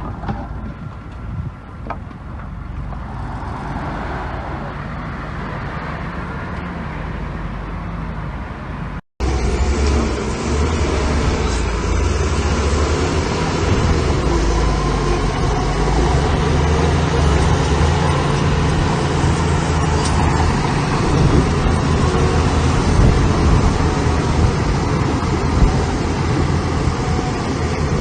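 Diesel engine of heavy construction machinery running steadily. It is quieter for the first nine seconds, then cuts off abruptly and comes back louder with a deeper, steadier rumble.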